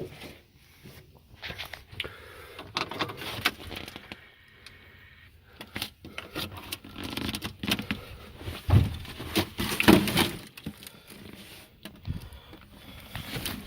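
Irregular clicks, knocks and rattles of things being handled, with two louder thumps about nine and ten seconds in.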